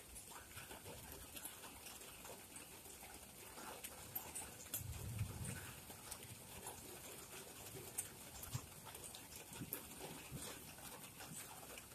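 Light rain with scattered drops ticking and pattering close by, and a brief low rumble about five seconds in.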